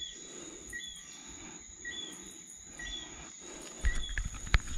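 Night-time chorus of insects: a steady high-pitched buzz with a two-note chirp repeating about once a second. Near the end, thumps and a sharp click of handling noise come in, louder than the chorus.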